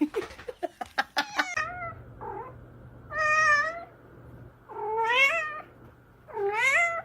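A cat meowing three times, each meow drawn out for about a second, over a low steady hum. The meows are preceded by a quick run of clicks and knocks in the first second and a half.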